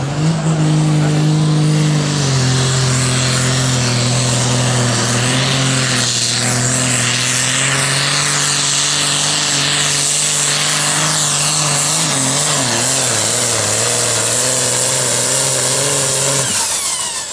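Competition pulling tractor's engine run hard at full throttle through a pull: a loud, steady engine note whose pitch wavers for a moment past the middle. Near the end it cuts back abruptly.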